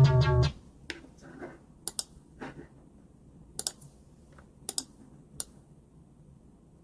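A synth tone with a falling pitch cuts off about half a second in. Then come about ten soft, irregular clicks, like a computer keyboard and mouse.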